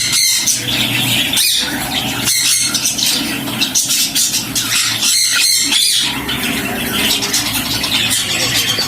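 Budgerigars chattering and squawking without a break.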